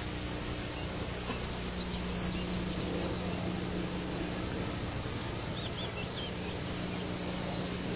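Steady hiss and low hum of an old outdoor recording, with a few faint, high bird chirps about two seconds in and again around six seconds.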